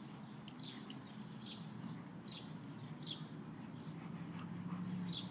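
A bird giving short, falling chirps, one a little more often than every second, over a faint low steady hum.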